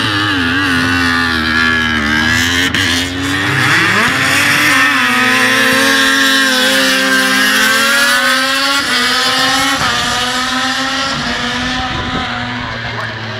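Several 800 cc MotoGP racing motorcycles passing at high revs, their engine notes overlapping. The pitch drops and then climbs again about three to four seconds in as the riders shift and accelerate, and it falls away slightly near the end.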